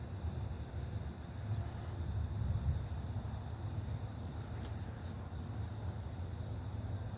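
Crickets trilling steadily in several high, thin tones, over a louder low, steady rumble. Two faint clicks, about a second and a half in and again near the middle.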